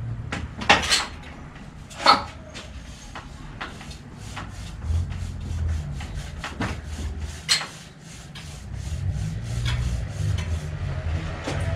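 Seized steel seatpost being twisted and pulled in a steel bicycle frame: rubbing and scraping with scattered sharp clicks and knocks, a few of them louder.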